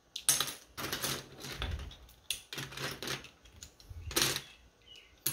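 Plastic Lego bricks clattering and clicking against each other as a hand rummages through a loose pile of them on a table, in irregular runs of clicks.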